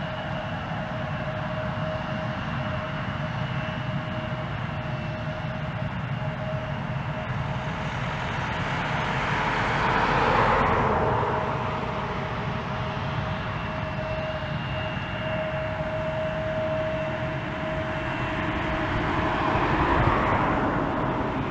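Embraer E170's GE CF34 turbofan engines running at taxi power, a steady whine over a rush of noise. The rush swells and fades twice, about halfway and again near the end.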